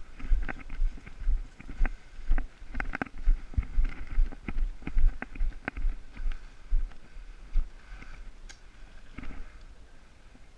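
A series of irregular sharp clicks and knocks over low thumping, thinning out near the end.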